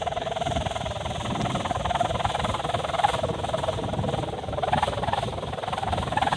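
Wind noise with a steady, slightly wavering hum running through it.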